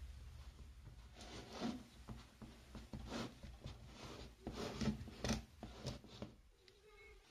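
Fingers pressing and smoothing buttery chocolate-cookie crumbs into the base of a metal springform pan: faint, irregular rubbing and patting strokes with small taps.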